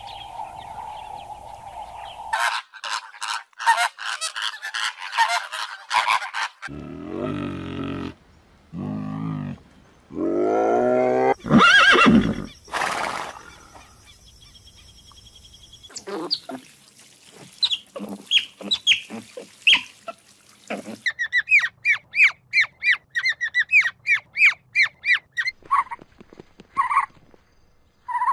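A run of different animal and bird calls, one after another: a steady tone at first, then rapid chirping, then several long calls with many stacked pitches, and a fast run of short chirps near the end.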